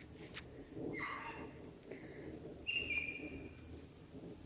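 A steady high-pitched insect drone, typical of crickets, over quiet outdoor background noise, with a couple of short, faint calls about one second and about three seconds in.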